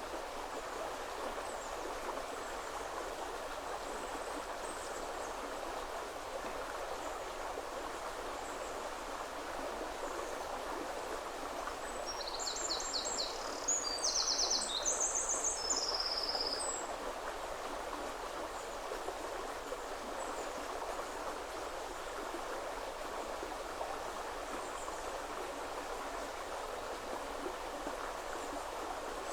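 River water flowing steadily over stones, with a small songbird singing a quick, high phrase of rapid repeated notes about halfway through and a few faint chirps elsewhere.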